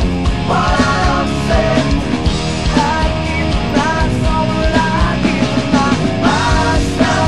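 Hard rock band recording playing at full level, with a steady beat and a lead line of sliding, bending notes over it.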